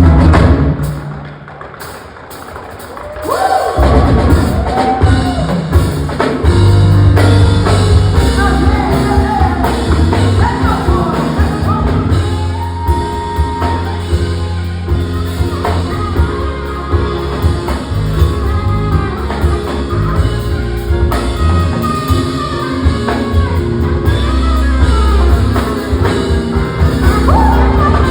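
Live band music with drum kit and bass: a sharp loud hit at the start, a quieter passage, then the full band comes in about four seconds in and plays on steadily.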